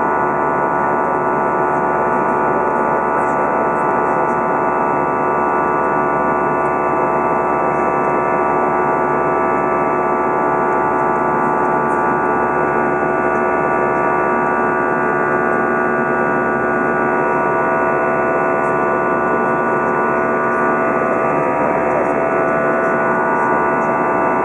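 Airbus A320 jet engines heard from inside the cabin during the climb: a loud, steady drone with several steady tones in it.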